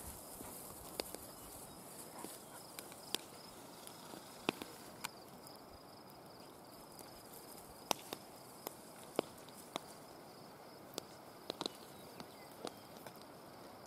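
Faint outdoor ambience: a steady, high insect drone with scattered sharp clicks and ticks every second or two.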